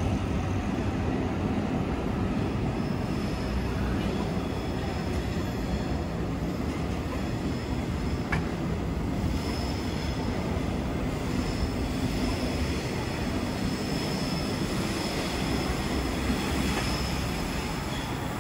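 Steady city street noise: a constant low rumble of traffic, with a faint high whine in the second half.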